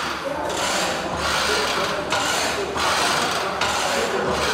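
Plate-loaded leg press sled sliding up and down its rails under load. It makes a rubbing, scraping noise in a run of strokes under a second each, with short breaks between them.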